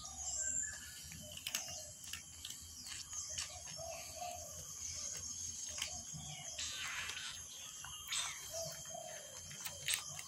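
Small birds chirping: short calls, each rising and falling, repeated at irregular intervals over a low background, with a few faint sharp clicks.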